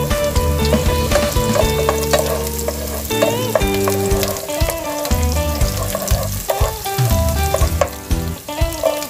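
Chopped onion and garlic sizzling in hot oil in a pan, stirred and scraped with a wooden spatula as they sauté until fragrant, under background music.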